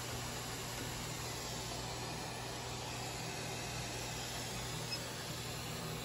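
Hot air rework gun blowing steadily at high airflow: an even hiss with a low hum underneath, as it melts the solder to seat a new HDMI port on a PS5 board.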